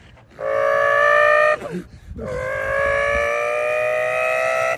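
A man's voice imitating a Lexus LFA's V10 engine at high revs: a long, high, held note, a short break with a falling dip about a second and a half in, then a second long note that climbs slowly in pitch.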